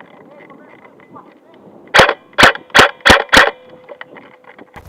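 Airsoft gun firing five single shots in quick succession, about three a second, starting about two seconds in.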